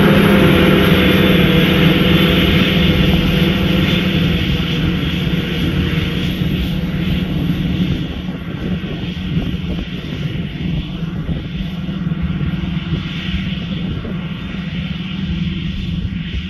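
Claas Jaguar 960 self-propelled forage harvester running under load while chopping grass, a steady heavy drone from its engine and chopping drum, with the tractor pulling the silage wagon alongside. The drone grows fainter over the first half as the machines move off, then holds steady.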